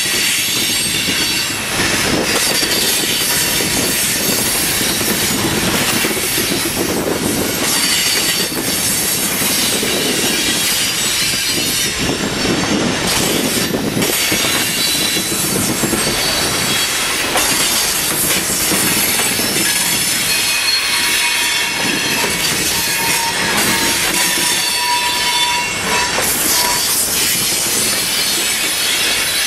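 Freight boxcars rolling slowly past on a curve, their steel wheels squealing against the rail in shrill, wavering tones over a steady rumble of the cars.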